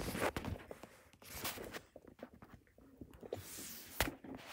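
Rustling and handling noises from a hand-held camera being moved about, with scattered light clicks and knocks and a sharp click about four seconds in.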